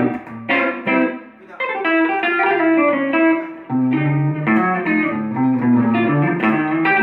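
Electric guitar played through an amplifier with a Verve Sound Rise's clean booster pedal switched on, adding overtones without distorting: a phrase of quickly picked notes, then held notes and chords that ring on, with a brief dip before a new chord about halfway through.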